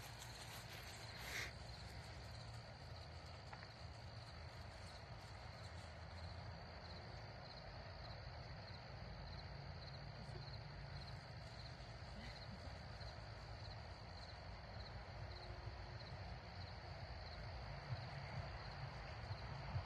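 Faint insects chirping steadily in a fast, high-pitched pulse, over a low steady rumble, with a few faint clicks near the start.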